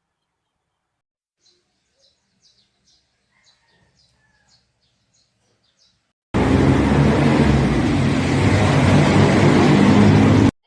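Faint bird chirps, then a loud, steady machine-like running noise that starts abruptly about six seconds in and cuts off abruptly about four seconds later.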